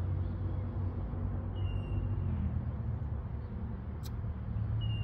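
Steady low rumble of road traffic, with a brief thin high tone about halfway through and a faint tick near the end.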